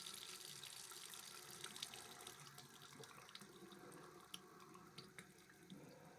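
Faint running water from a tap opened at the lowest point in the house to drain the plumbing. The flow slowly thins as the pressure drops, with a few drips.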